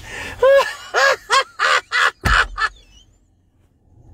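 A man's high-pitched, breathless cries in a quick run of short bursts, with a knock partway through, then a brief lull.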